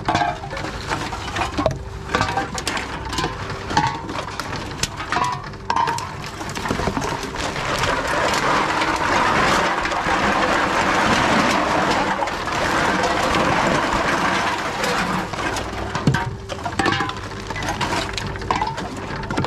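Drink cans being fed by hand into a TOMRA reverse vending machine, with clicks and clattering knocks as they go in. In the middle, a long stretch of plastic rustling as a large sack of containers is handled. The clicking resumes near the end, over a faint steady hum.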